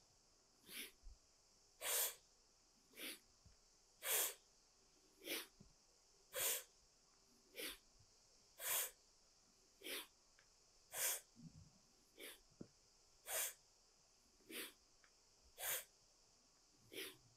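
A woman breathing hard in a steady rhythm: short, quick breaths about one a second, with stronger and weaker breaths alternating as inhales and exhales. Her breath is paced to a repeated yoga flow between plank and pressing back.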